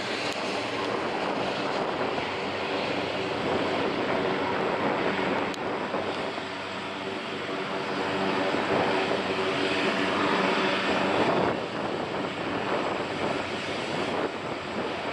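Business jet with tail-mounted engines landing: a steady jet engine rush with a faint whine through it, swelling louder about eight seconds in.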